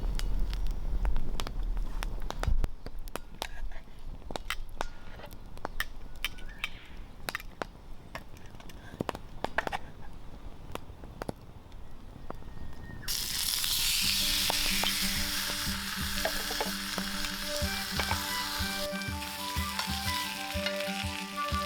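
Scattered sharp crackles and clicks at first, then about 13 seconds in, a loud hissing sizzle starts suddenly as food hits a hot pan over the campfire and keeps frying steadily. Background music with steady notes enters with the sizzle.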